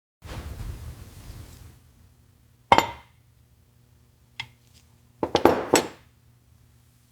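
A short rushing noise, then sharp metal clinks: one loud clink, a lighter one, and a quick run of several clinks near the end, like metal tools or parts being handled and set down.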